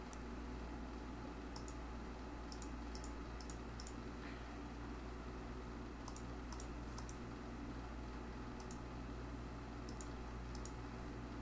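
Scattered sharp clicks from working a computer mouse and keyboard, each a quick double tick like a button press and release, about ten in all, over a steady low hum.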